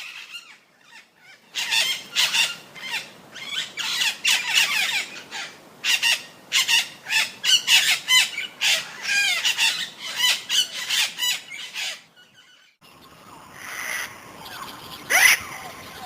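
Parrots squawking and chattering in a rapid, overlapping flurry of shrill calls. After a brief break the background changes and one loud squawk stands out near the end.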